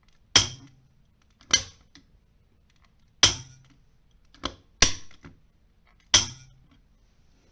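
Six sharp clicks at irregular intervals from the push button of a disassembled Panasonic manual fire alarm call point being pressed in to operate and pushed back up to reset.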